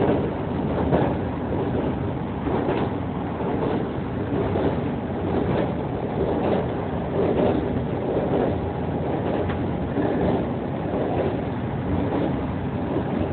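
Running noise heard inside a Kintetsu electric express train on the move: a steady rumble of wheels on rail, with soft knocks every second or so.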